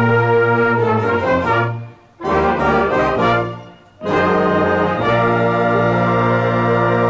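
Marching band playing a college fight song, brass to the fore with trombones and trumpets, in held chords broken by two short pauses about two and four seconds in.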